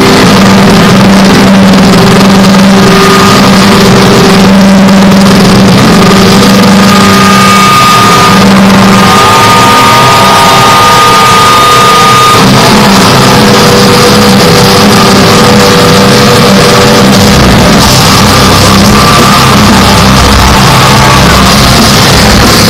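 Metalcore band playing live at very high volume, heavily distorted by an overloaded phone microphone: held guitar and keyboard notes ring over a constant wash of noise, and about seventeen seconds in a heavy bass and drum low end comes in as the song kicks in.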